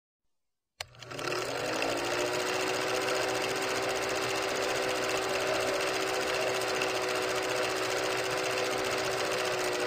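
Film projector sound effect: a click about a second in, then the projector starts up. Its whine rises briefly and then holds a steady pitch over a fast, even mechanical clatter.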